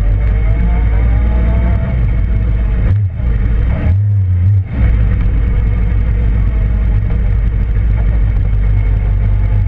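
Suzuki GSX-R motorcycle engine running steadily with a loud low rumble, changing briefly about three seconds in and again around four to five seconds in; the owner calls it a bad motor.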